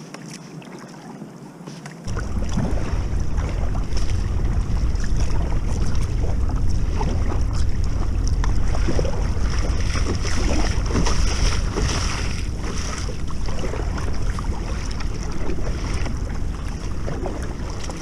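Wind buffeting the microphone as a heavy, gusty rumble that starts abruptly about two seconds in, over water lapping and splashing against a kayak hull with small scattered knocks.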